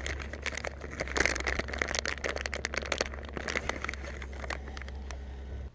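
Plastic snack-cake wrapper crinkling and crackling as hands pull the bag open, the crackle thinning out after about four and a half seconds. A steady low hum runs underneath and cuts off suddenly near the end.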